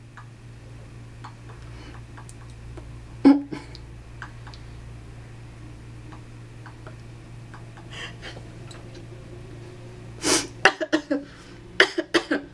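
Stifled laughter in short bursts: one about three seconds in, then a quick run of bursts in the last two seconds, over a low steady hum.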